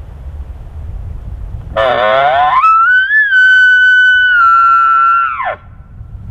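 An elk bugle: it starts low and rough, climbs into a long high whistle, holds it for about three seconds, then falls away.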